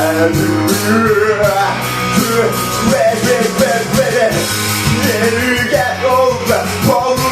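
Rock song with singing, guitar, bass and drums.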